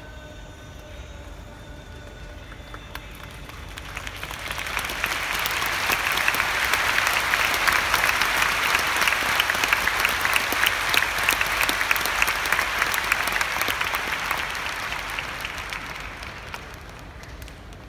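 Sumo hall audience clapping. The applause swells about four seconds in, holds, and dies away near the end.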